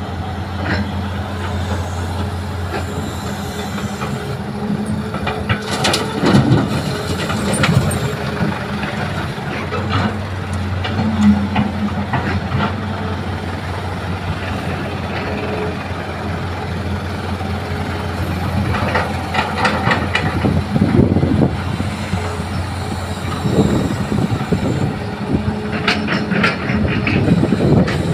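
Diesel engines of a Hitachi excavator and dump trucks running steadily, with several bursts of clattering and knocking as buckets of soil and rock are dropped into a steel dump-truck bed.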